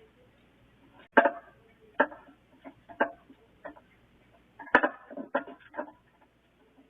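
A series of sharp knocks and clatters, roughly one a second, the loudest about a second in and just before five seconds.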